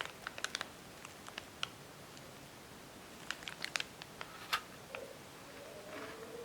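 Scattered light clicks and taps, with a faint rising tone starting near the end.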